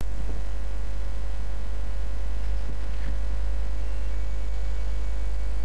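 Steady, loud electrical mains hum, very low in pitch, with a faint even hiss above it.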